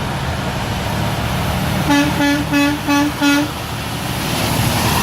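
Truck horn sounding five short toots in a quick, even rhythm, about three a second, over the steady rumble of passing traffic.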